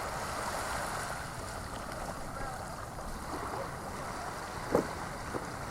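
Steady wind and water noise on a small boat at sea, with faint distant voices and one brief sharp knock near the end.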